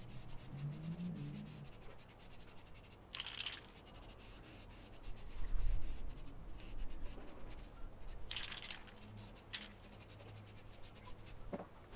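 Aerosol can of high-heat spray paint hissing in short bursts, the two strongest about three seconds and eight and a half seconds in, with faint rapid ticking and rubbing between.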